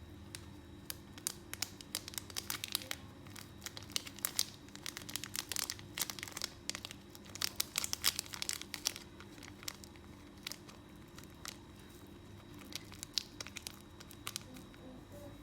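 Irregular dry crinkling and crackling, many small sharp crackles in a long cluster and then a shorter one near the end.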